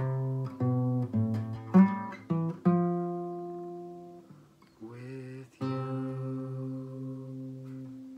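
Acoustic guitar picking the closing phrase of a song in single notes and short chords, then a final chord struck about five seconds in and left to ring out and fade.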